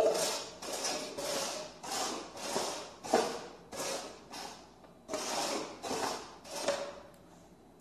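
Red plastic cups being slid quickly back and forth across a wooden floor, a run of short scraping swishes that stops near the end.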